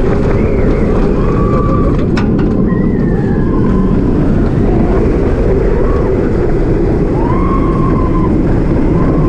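Heavy wind noise on the on-board microphone over the rumble of an Intamin inverted roller coaster train running at speed along its steel track. A short sharp click comes about two seconds in, and brief rising and falling high tones sound now and then.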